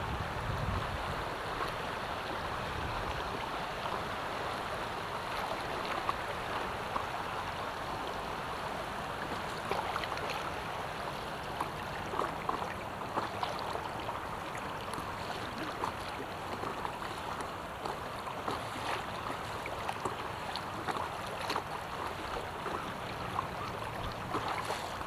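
Steady river water lapping and rippling against the hull of an inflatable stand-up paddleboard, with scattered small splashes and taps from the paddle and the moving water.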